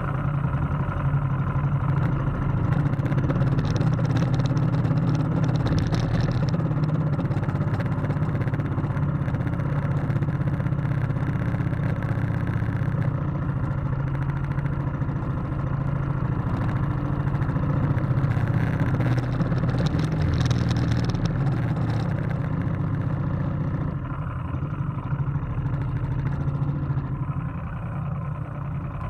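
A racing motorboat's engine running steadily at speed, a low, even drone, with water rushing past the hull and brief bursts of hiss about four and twenty seconds in.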